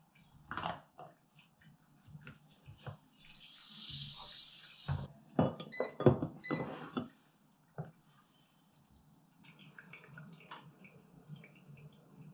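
Water poured from a kettle for about two seconds, then a few ringing clinks of glass and ceramic and small handling knocks while coffee is brewed with a V60 dripper and an AeroPress.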